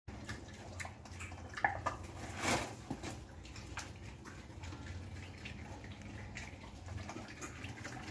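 Wild boar eating jackfruit: wet chewing and smacking with irregular small crunches and clicks, and a short louder burst of noise about two and a half seconds in.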